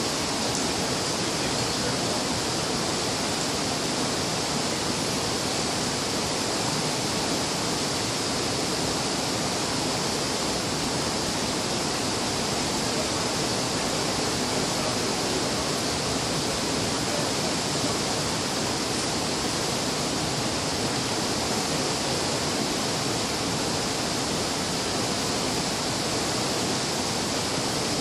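Steady rushing of water, an even, unbroken noise that neither rises nor falls.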